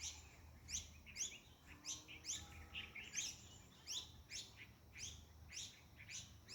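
Birds chirping: a steady run of short, high chirps that drop quickly in pitch, about two a second.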